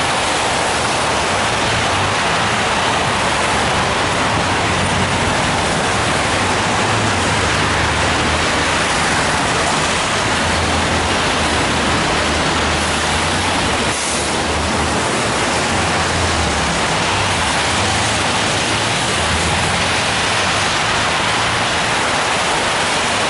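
Steady hiss of road traffic on wet asphalt, tyres swishing on the rain-soaked road, with a low rumble of engines underneath.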